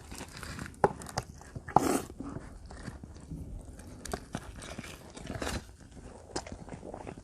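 Close-miked chewing of combination pizza: irregular wet mouth clicks and soft crunches, with one louder, brief crunch about two seconds in.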